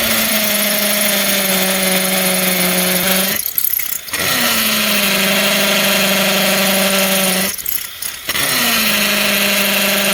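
Hammer drill boring into concrete, its motor sagging slightly in pitch under load. It runs in three stretches, stopping briefly twice, about three and a half and eight seconds in.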